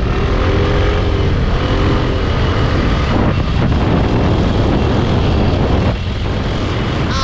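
Motorcycle on the move: a heavy rush of wind on the microphone over the engine's steady hum, with the engine note wavering up and down in the first couple of seconds.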